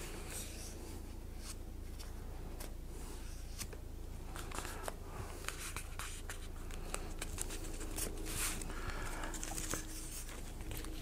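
Hands handling and positioning glued foam road pieces on a newspaper-covered bench: scattered light clicks, taps and short scrapes, over a steady low hum.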